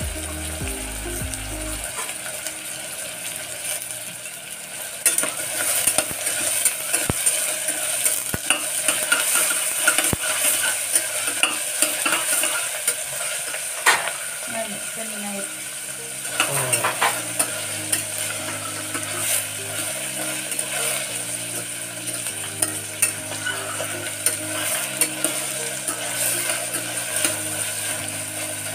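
Chopped onions sizzling in hot oil in a pressure cooker. From about five seconds in, a metal spatula stirs them, scraping and clicking against the pot.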